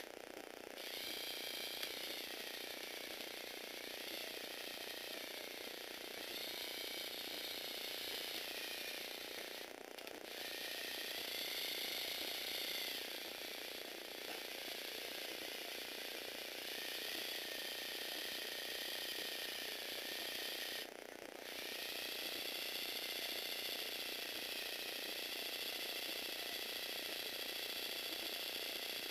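Electric motor of a Lego Technic 8271 loader model running its plastic gear train: a steady whirring whine whose pitch wavers up and down with the load. It stops briefly about ten seconds in and again about twenty-one seconds in, then starts again.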